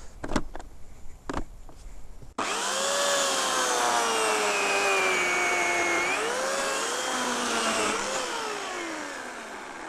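Electric chainsaw starting suddenly about two seconds in and cutting through a dry willow log, its motor whine dropping in pitch as the chain bites, briefly rising, then dipping again before winding down over the last couple of seconds. A few light knocks come before the saw starts.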